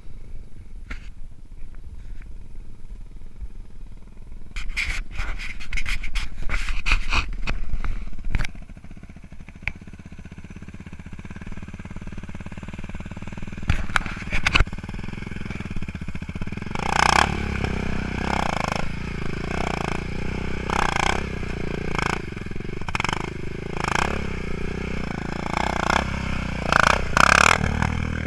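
ATV engine running and revving. Loud bursts come about five to eight seconds in, and in the second half there is a string of short revs about once a second.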